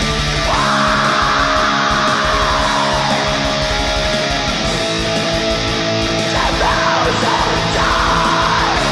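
Old-school black metal recorded at home: distorted electric guitars strummed over drums. A harsh, noisy layer comes in over the top about half a second in and again from about six seconds.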